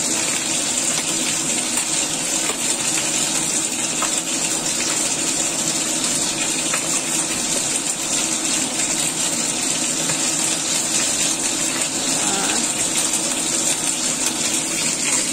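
Pot of chicken and lion's mane mushroom soup at a rolling boil, bubbling steadily, with a few light clinks against the pot as it is stirred.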